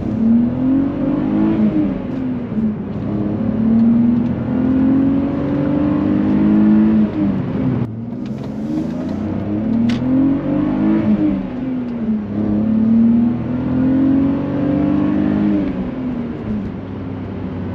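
BMW E46 328i's 2.8-litre inline-six engine pulling while driving: the engine note rises under acceleration and drops back several times as the car goes through gears, holds steady for a few seconds, then falls away near the end.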